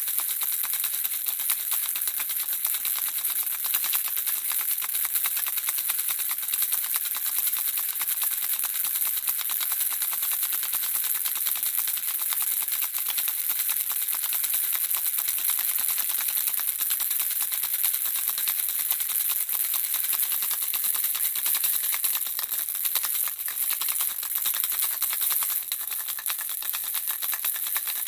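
Handheld baby rattle shaken continuously, a dense, steady, high-pitched rattle of small beads inside.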